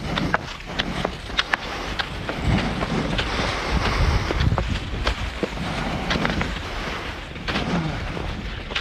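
Wind buffeting the microphone, with a stronger gust a couple of seconds in, over a string of short, sharp crunches of snow as someone moves along a snowy trail.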